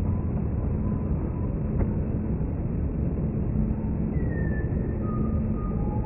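Jet aircraft rumbling steadily, with faint high whistling tones that fall in pitch about four and five seconds in.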